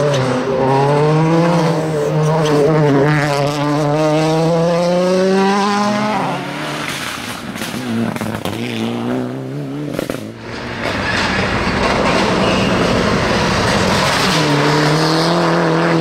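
Rally cars, among them Mitsubishi Lancer Evolutions, driven hard past one after another on a tarmac stage. A strong engine note holds high revs and rises slightly for about six seconds, then a rougher stretch with sharp cracks follows. Another car's engine note builds near the end.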